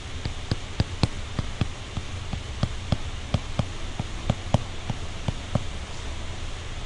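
Stylus tapping and scraping on a tablet screen as an equation is handwritten: small, irregular clicks, several a second, over a steady low hum.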